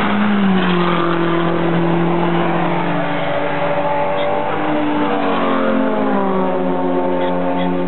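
Race car engines passing: one car's engine note drops in pitch just after it goes by and then carries on steadily as it pulls away, while other engine notes rise and fall over it from about three seconds in.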